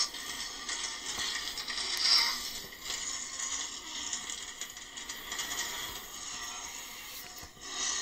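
Sound-effects track of a film dinosaur-attack scene played off a television, heard thin with no low end: a dense, steady rattling and scraping noise, loudest about two seconds in.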